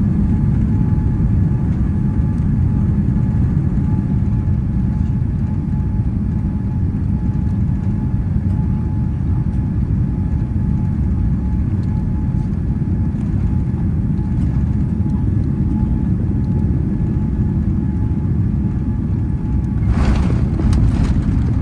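Airliner cabin noise on final approach: a steady low rumble of airflow and engines with a faint whine. Near the end come a few sharp thumps and a rattle as the wheels touch down on the runway.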